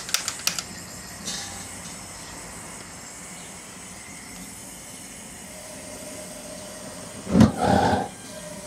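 Clicks of a gas cartridge blowtorch's igniter, then the torch burning with a steady hiss as it fires into a small brick forge. About seven seconds in, a brief loud burst of noise.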